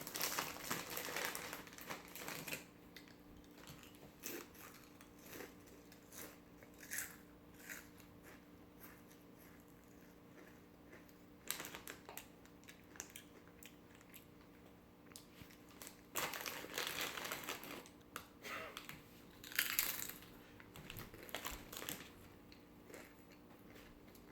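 Chip bag crinkling, then a child crunching and chewing rippled potato chips, in short bursts with quieter stretches between.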